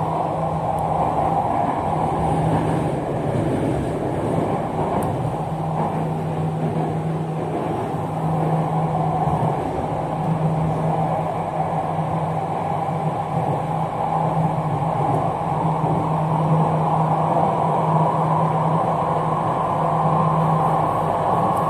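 Jakarta MRT train heard from inside the carriage while running on the elevated track: a steady rumble of wheels and running noise, with a low hum that drops away a few seconds in and then returns.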